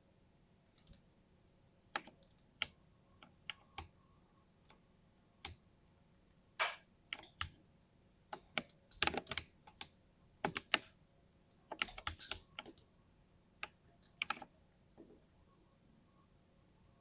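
Typing on a 60% mini mechanical keyboard with linear switches: irregular keystroke clicks, sometimes single and sometimes in quick flurries, mostly in the middle. The typing stops about two seconds before the end.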